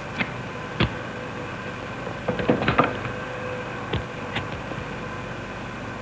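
Scattered clicks and knocks of small kitchen utensils and containers being handled and set down on a counter, with a quick run of clatter about two and a half seconds in, over a steady background hum.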